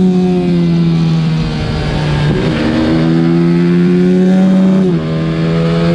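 125cc racing minibike engine running hard at high revs, a loud steady note with a brief break about two and a half seconds in, then holding again and dropping slightly in pitch near the end.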